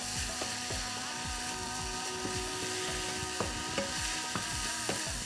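Risotto rice frying with sliced onion in olive oil in a non-stick pan, sizzling steadily as a wooden spoon stirs it, with a few scattered clicks.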